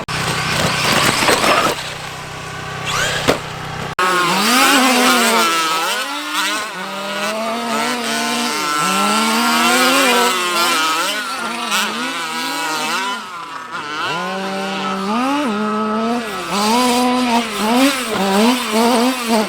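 Large electric RC basher trucks driving on dirt. For the first few seconds there is a noisy rush of tyres and dirt, then after a sudden cut a motor whine rises and falls over and over as the throttle is blipped.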